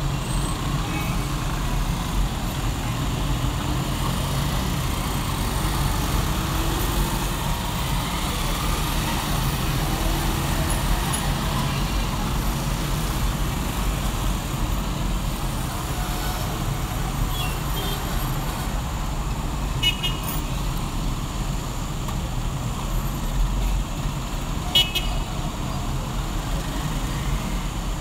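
City road traffic: a steady rumble of passing vehicles, with a couple of short horn toots in the second half.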